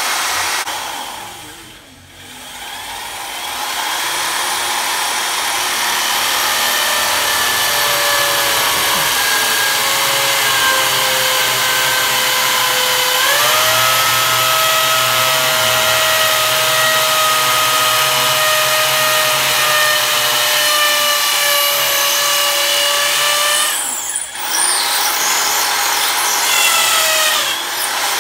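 Corded electric drill boring into a concrete wall, running steadily with a motor whine. It eases off briefly about two seconds in and again near the end, and its pitch steps up about halfway through.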